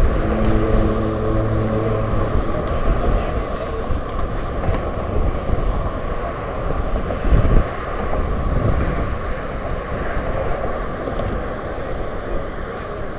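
Steady rush of car traffic passing on the bridge roadway, with low rumble from wind on the microphone. A steady low hum is held for about the first two seconds, and a louder low gust or surge comes about halfway through.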